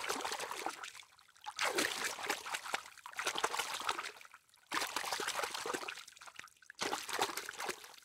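Water splashing as a crowd of koi churn at the surface, in four bursts of a second or more, each ending in a short silence.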